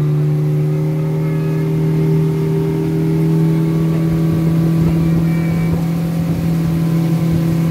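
Small tour boat's motor running at a steady cruising pitch, a continuous low hum while the boat moves through the water.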